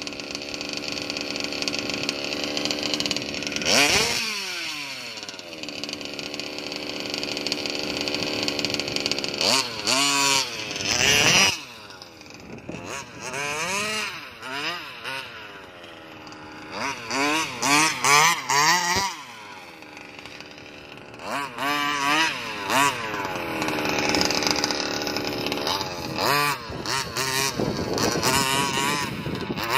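Small two-stroke gas engine of a 1/5-scale Rovan Baja RC buggy running on a freshly overhauled carburetor. It holds steady, then is revved up and down in repeated throttle blips with rising and falling pitch as the buggy drives, and settles into a long steady high-revving stretch near the end.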